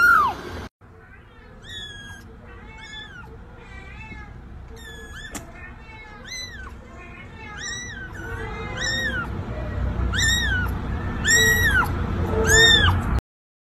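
Kittens mewing: one loud high meow at the start, then after a short break a run of about a dozen high-pitched mews, roughly one a second, getting louder toward the end.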